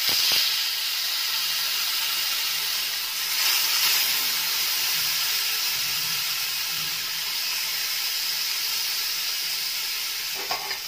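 Marinated fish steaks sizzling in hot oil on a flat tawa: a steady high hiss that starts suddenly as the first piece goes in, swelling briefly about four seconds in as more pieces are laid down.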